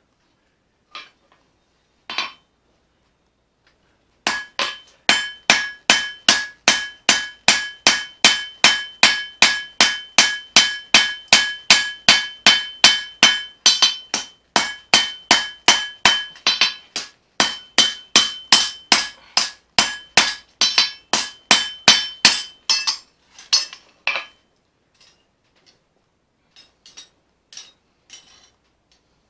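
Hammer forging a leaf-spring steel knife blade on an anvil: a long, steady run of blows, about three a second, each with a ringing tone from the anvil. A few lighter, scattered taps follow near the end.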